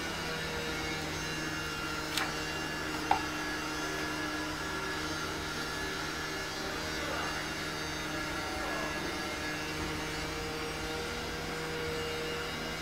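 A steady machine-like hum with several fixed pitches, and two short clicks about two and three seconds in.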